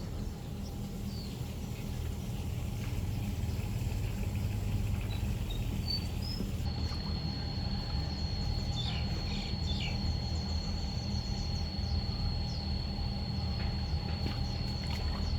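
Outdoor rural ambience: a steady low rumble, joined about a third of the way in by an insect's steady high-pitched buzz, with a few short bird chirps.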